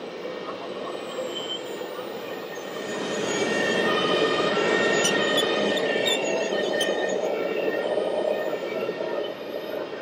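A radio-controlled Volvo hydraulic excavator model driving on its tracks, with a high, steady, many-pitched mechanical whine that grows louder about three seconds in and eases near the end.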